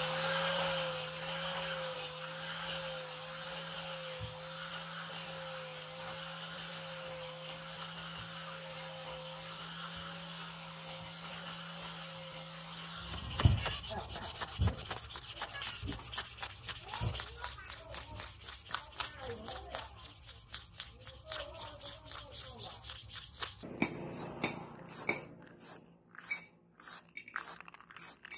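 An angle grinder with a foam polishing pad runs steadily, buffing a wooden knife handle, and stops about 13 seconds in. A hand then rubs and sands the handle, with a few sharp knocks. Near the end come short crisp strokes as the knife cuts through grass stalks.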